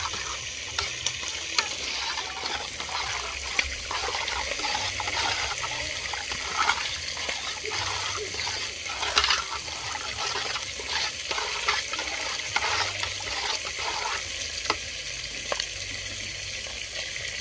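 Liquid sloshing and splashing as rice is stirred by hand, and with a spoon near the end, in a large aluminium pot of cooking liquid. Irregular splashes run over a steady hiss.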